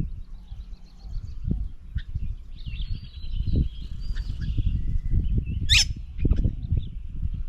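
Birds at a garden bird table chirping and calling, with one loud call sweeping down in pitch about six seconds in. An uneven low rumble of wind on the microphone runs under the calls.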